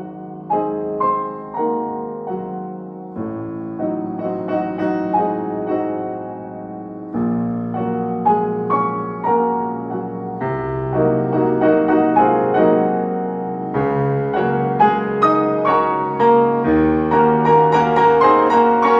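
Background piano music: a gentle melody of struck notes over low chords, building fuller and louder toward the end.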